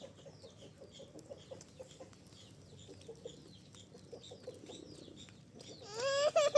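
Chickens clucking softly in quick, scattered little clucks and chirps. A louder wavering call breaks in near the end.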